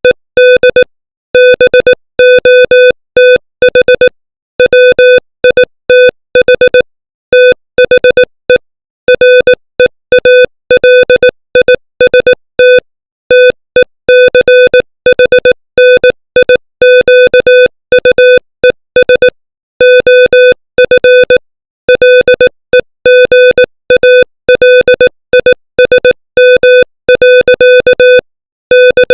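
Morse code sent at 18 words per minute as a single steady electronic tone. It is keyed on and off in short dots and longer dashes, with short gaps between letters and longer ones between words.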